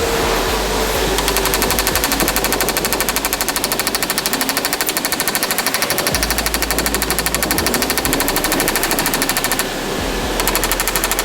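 Rapid, evenly spaced mechanical rattling like a small power tool hammering, steady for most of the time, with a brief break near the end before it starts again.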